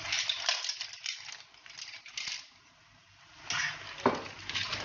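Cooked mussel shells clicking and clattering against one another and the pot as they are tipped from a bowl into tomato sauce. The clatter eases off around the middle, then comes back louder near the end as the mussels are stirred in, with one sharper knock.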